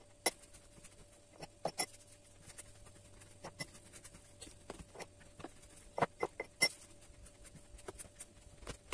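Floured hands kneading and pressing a ball of pumpkin gnocchi dough on a cutting board: irregular soft slaps and taps, with a few sharper ones about two seconds in and again about six seconds in.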